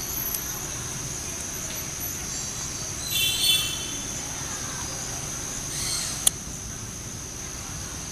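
Insects droning with a steady high-pitched tone, under a low rumble. A brief high call rises above it about three seconds in, and a single sharp click comes a little after six seconds.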